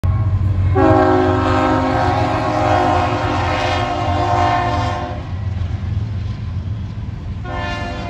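Raised-letter Nathan K3HL air horn on a Union Pacific C44ACM locomotive sounding its multi-note chord: one long blast of about four seconds, then a second blast starting near the end, over a steady low rumble.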